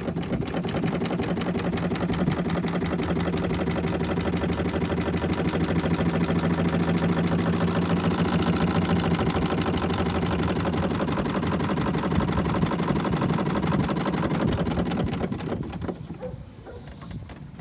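Blackstaff steeple compound steam engine running fast with a rapid, even mechanical beat. It dies down sharply near the end.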